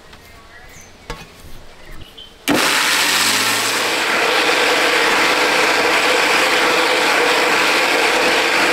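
Electric mixer grinder with a steel jar switching on about two and a half seconds in, its motor spinning up briefly and then running steadily and loudly as it grinds grated coconut. A few light clicks of the jar and lid come before it starts.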